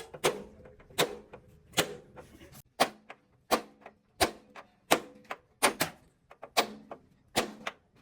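Repeated hammer blows on metal, about one to two a second and irregularly spaced, each ringing briefly.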